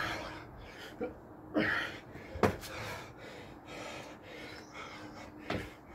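A man breathing hard and gasping from exertion while doing burpees, with a few thumps of hands and feet landing on patio paving; the sharpest thump comes about two and a half seconds in.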